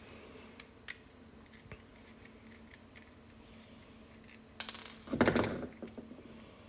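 Small metal parts and a tool being handled while a screw-together electronics enclosure is taken apart: a light click about a second in, then a short metallic clatter around five seconds in.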